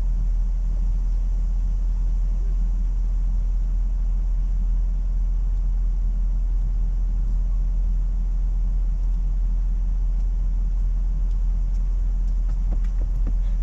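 Steady low rumble of a car idling, unchanged throughout, with a few light clicks near the end.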